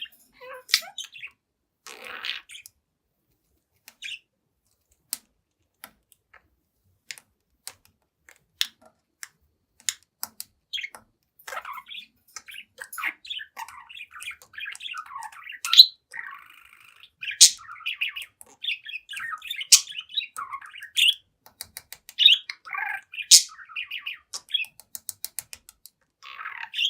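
Young budgerigar chattering: scattered clicks and short chirps at first, then from about eleven seconds in a continuous run of warbled chatter broken by a few sharp, loud chirps.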